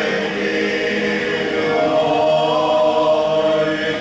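A men's folk singing group singing a traditional Slavonian song unaccompanied, in long held notes. The harmony moves to a higher chord about halfway through.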